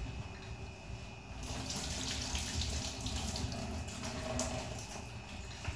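Water running, a steady rushing hiss that starts about a second and a half in and fades near the end, over a low background rumble.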